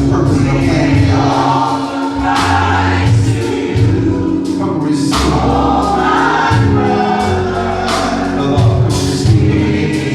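Gospel choir singing with instrumental accompaniment, sustained low bass notes changing every second or two under the voices.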